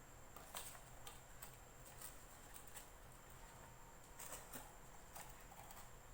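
Faint, irregular small clicks of a screwdriver and screws being worked into an impulse plastic bag sealer, against a quiet room hum.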